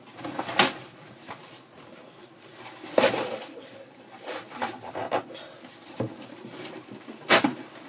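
Box and packaging being handled one-handed during unpacking: three sharp knocks, less than a second in, about three seconds in and near the end, with lighter taps and rustling between.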